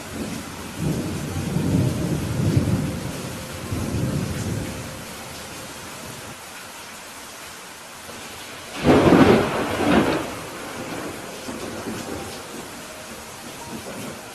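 Steady rain falling in a thunderstorm, with a low rolling rumble of thunder for the first few seconds and a louder, sharper thunderclap about nine seconds in that rumbles on for about a second.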